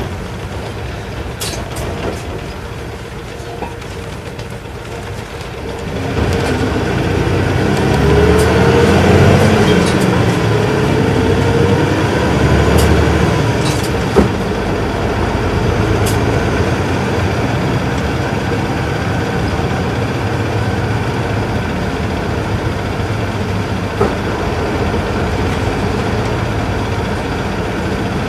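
Isuzu Erga Mio bus's inline-six diesel engine heard from inside the cabin. It is quieter for the first few seconds, then grows louder about six seconds in as the bus pulls harder, with a rising whine. It then runs steadily at road speed, with a few short sharp clicks.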